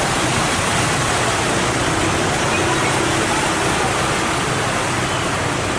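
Heavy rain falling, a steady rushing hiss with no break.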